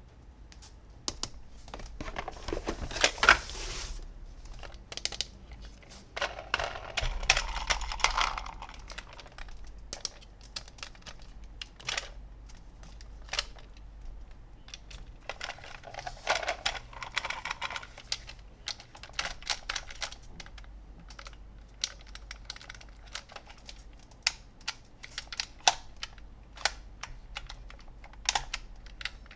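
Plastic toys and their packaging handled close to the microphone: a run of small clicks and taps, with three longer stretches of rustling about two, seven and sixteen seconds in.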